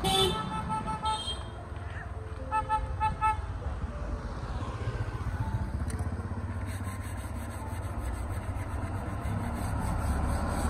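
Passing road traffic: a vehicle horn honks at the start, then a quick series of short toots a few seconds in. After that a steady rumble of passing motorbikes and a truck builds, louder near the end.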